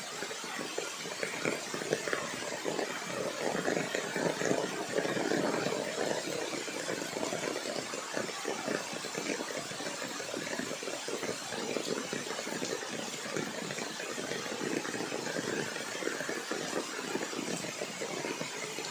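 Rain falling steadily, a dense patter of many drops with no pause.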